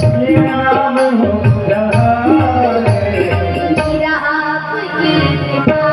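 Hindi devotional bhajan music: a tabla rhythm under a melodic line, the accompaniment playing on after the last sung line.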